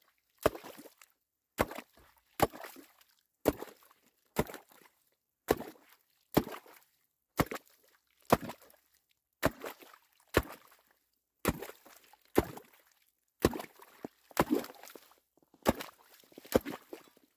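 Homemade ice chipper, its blade cut from a sawmill chipping blade, driven into lake ice in steady blows about once a second. Each blow is a sharp chop into wet ice and slush, with a slushy splash as the hole is already taking water.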